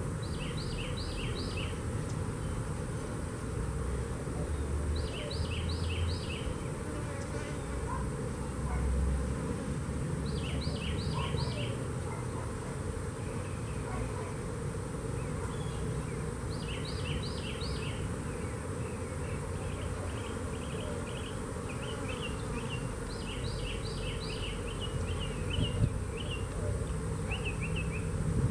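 Honey bees buzzing steadily around an open hive as its frames are worked. A bird repeats a short phrase of three or four quick high notes about every five seconds, with a looser run of notes later.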